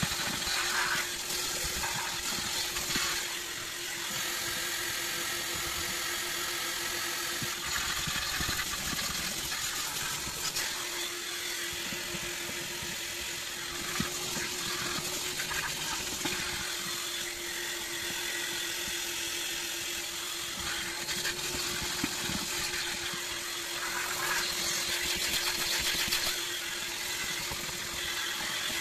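Vacuum cleaner running steadily on a car's floor carpet: a constant motor hum with air rushing through the hose and nozzle, rising and falling slightly as the nozzle moves over the carpet.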